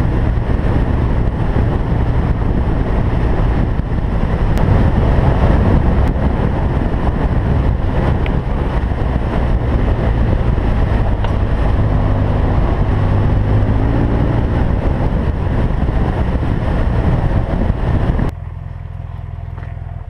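BMW R1200GS boxer-twin motorcycle being ridden, engine running under heavy rumble and wind noise, with a short rise in engine pitch about two-thirds of the way in. About two seconds before the end the sound drops abruptly to a quieter low steady hum.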